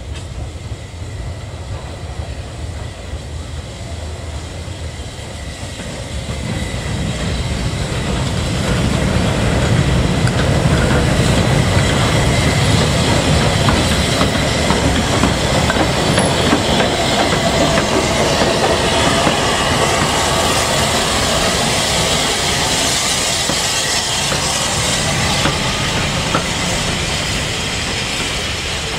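Maunsell S15 class 4-6-0 steam locomotive No. 847 rolling slowly past tender-first, its wheels clattering over the rail joints, followed by its coaches. The sound grows louder from about a quarter of the way in as the engine draws level and stays loud as the coaches pass.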